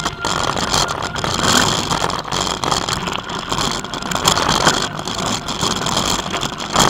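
Mountain bike riding down a rough gravel trail: steady tyre rolling noise with the bike clattering and rattling over bumps.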